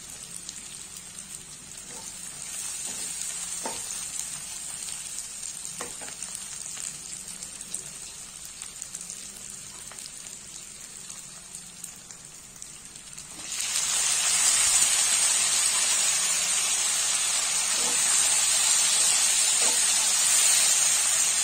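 Onion, garlic paste and green chillies frying in mustard oil in a kadhai: a steady low sizzle with a few faint knocks of the stirring spoon. About two-thirds of the way through, the sizzle suddenly becomes much louder and stays loud, as chopped tomatoes go into the hot oil.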